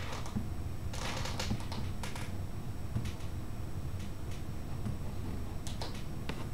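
Computer keyboard keys clacking in scattered short runs, picked up by a camera microphone over a steady low hum, with a quick cluster of sharp clicks near the end.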